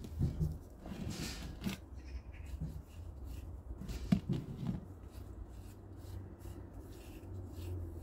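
Gloved fingers scraping and rubbing the rough surface of a concrete statue, loose grit crumbling off, in short scratchy strokes with a longer rasp about a second in. A sharp tap about four seconds in as the statue is handled and turned on the wooden table, over a steady low rumble.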